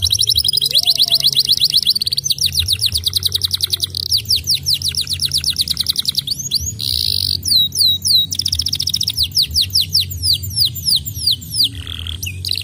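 Domestic canary singing a long unbroken song: very fast high trills that give way to runs of slower, sweeping downward notes, with the pattern changing every second or two.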